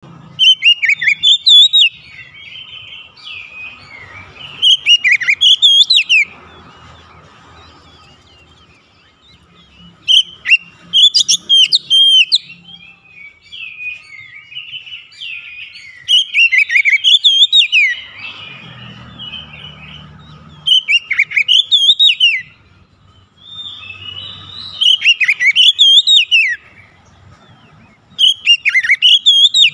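Oriental magpie-robin singing: loud phrases of rapid, sweeping whistled notes, each a second or two long and coming every four to five seconds, with softer twittering between them.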